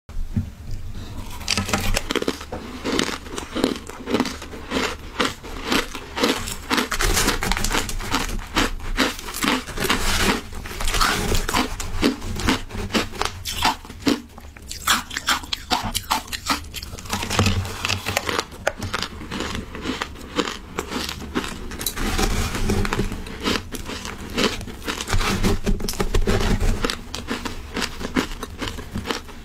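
Close-miked crunching and chewing of mouthfuls of shaved ice: a dense, continuous run of crisp crunches and crackles.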